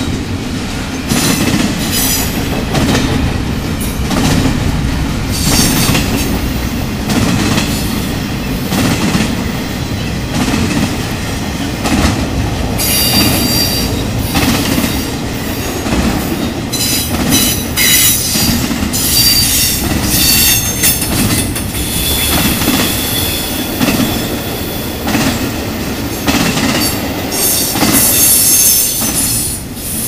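Intermodal freight train cars rolling past: a steady rumble of steel wheels on the rails with repeated clacks. From about halfway through, high-pitched wheel squeal comes and goes.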